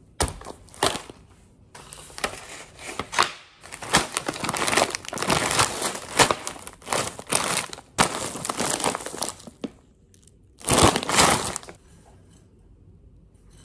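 Plastic food bags crinkling and rustling as they are handled and set down on a stone countertop, in irregular bursts with a few sharp knocks.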